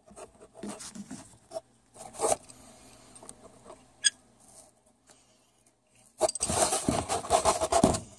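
Honeywell Supervent automatic air vent being worked by hand onto its fitting, which will not seat down right: scattered small metal clicks and scrapes, then about two seconds of rapid rattling and scraping near the end.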